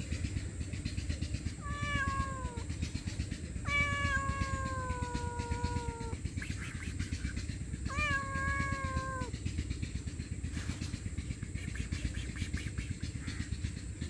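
A stray cat meowing three times: a short meow about two seconds in, a long drawn-out meow falling slightly in pitch about four seconds in, and another shorter one near eight seconds, over a steady low rumble of background noise.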